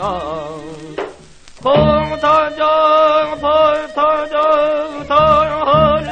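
Seodo sori (northwestern Korean folk song) singing from an early Victor 78 rpm record: a voice with heavy wavering vibrato breaks off briefly about a second in, then holds a long note. Low beats sound underneath.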